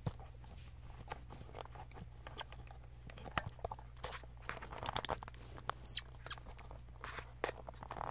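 Handling noise from a camera and tripod being moved and adjusted: irregular clicks, small knocks and fabric rustling, over a steady low hum.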